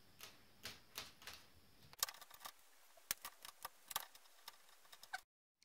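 Faint, irregular clicks and small scrapes of a blade picking and scraping old double-sided tape off an aluminium saw guide rail, coming thicker after about two seconds and cutting off suddenly near the end.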